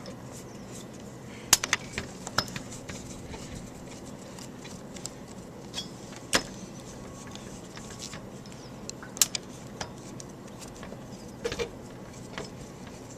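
Scattered sharp metallic clicks and clinks of hands and tools working open the small metal housing of a furnace inducer motor's centrifugal switch, over a steady low hum.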